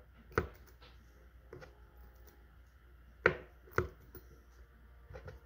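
A few sharp clicks and taps from a fishing reel and its line being handled up close while the line is redone. The loudest two come about three seconds in, half a second apart.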